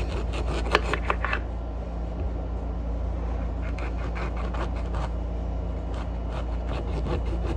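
Small knife cutting a lemon lengthwise into quarters: clusters of quick clicks and scrapes, once at the start and again from about halfway, over a steady low hum.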